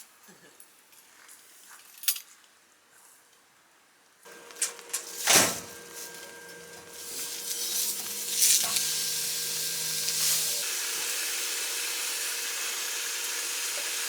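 Food frying in a hot pan: a few light clicks, then a clunk about five seconds in, after which a sizzle builds up and holds steady.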